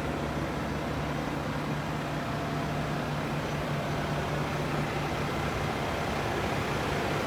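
Diesel engine of a Volvo semi truck running, heard from inside the cab: a steady low drone with a hiss of noise over it.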